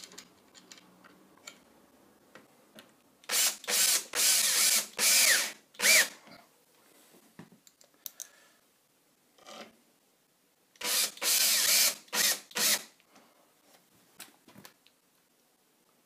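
Cordless drill-driver spinning in short bursts on screws: four or five quick spurts about three seconds in, a second run of four about eleven seconds in, some rising in pitch as the motor speeds up, with light handling knocks between.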